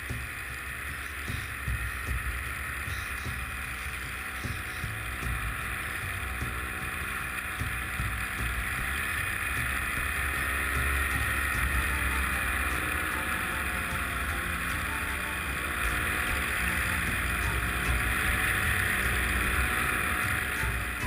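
Paramotor engine and propeller running steadily, with wind buffeting the microphone; the engine note slowly grows louder.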